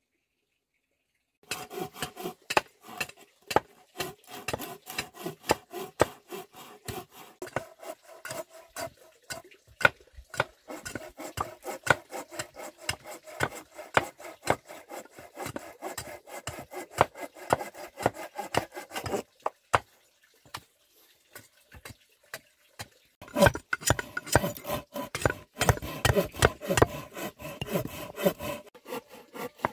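Machete blade chopping into wood, striking repeatedly at two or three blows a second to hew a piece of wood on a block. The chopping starts about a second and a half in, stops for a few seconds about two-thirds through, then resumes faster and louder.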